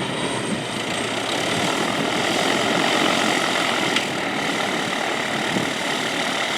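Airplane engine running with a steady, even rushing noise as the aircraft heads out.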